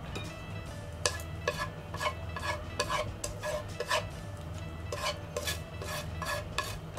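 Wooden chopsticks scraping and knocking against a non-stick frying pan as stir-fried green peppers are pushed out into a porcelain bowl. From about a second in there is a quick, irregular run of clicks and scrapes.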